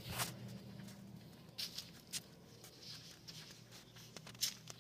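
Faint, scattered clicks and light taps over a low steady hum, the sharpest click near the end.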